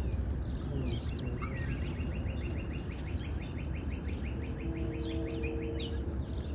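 A songbird gives one long rapid trill of evenly spaced notes, starting about a second and a half in and lasting about four seconds, among scattered chirps from other birds, over a steady low rumble.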